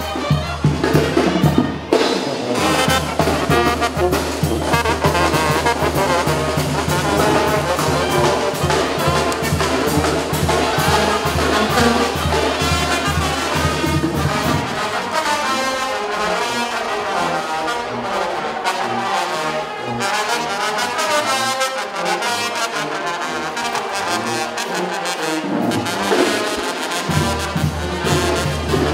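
Brass band music led by trumpets and trombones. The low bass part drops out about halfway through and comes back near the end.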